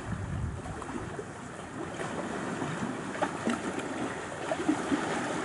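Small wind-driven waves lapping and splashing against rocks and a pebbly lake shore, a steady wash with little splashes scattered through it.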